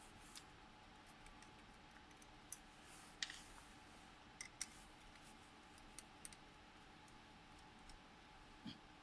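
Faint scattered clicks and ticks, about a dozen, irregular, from small hard parts being handled, over a faint steady hum.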